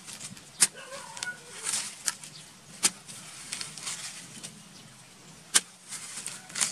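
A metal digging blade chopping into dry, crumbly soil to open a crab burrow: three sharp strikes a couple of seconds apart, with scraping and crumbling of earth between them.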